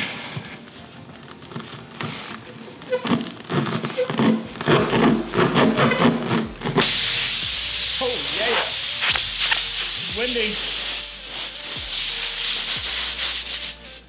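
The spiral reamer (rasp) of a tubeless tyre plug kit rasping as it is pushed up and down in a screw puncture in the tyre tread, cleaning out the hole before a plug goes in. It makes repeated rough strokes, then from about seven seconds in there is a steady loud hiss for several seconds.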